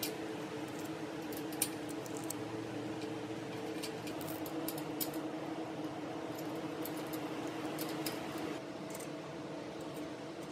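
Small metal clicks and taps as washers and an acorn nut are fitted and spun by hand onto a garden cart wheel's threaded axle stud, with a sharper click about a second and a half in. A steady hum with several tones runs underneath and shifts slightly near the end.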